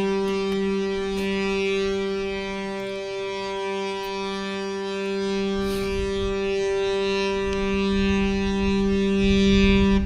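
A ship's horn sounding one long blast on a single steady pitch, stopping at the very end.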